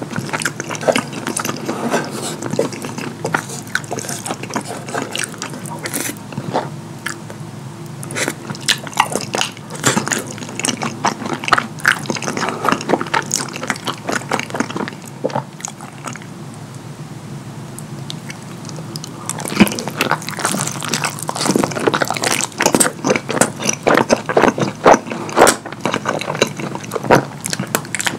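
Close-miked wet chewing and lip smacking of pasta in a creamy cheese sauce, full of sharp mouth clicks. It thins out and goes quieter a little past halfway, then comes back denser and louder toward the end.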